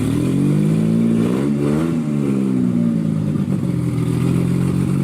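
Car engine idling, with one brief rev about a second and a half in that rises and settles back to idle.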